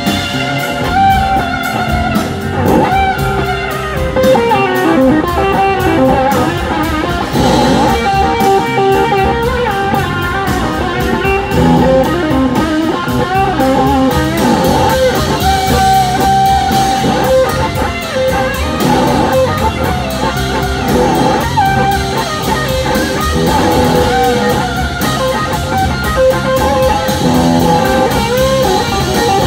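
Live blues-rock band playing, with electric guitar lines over a drum kit.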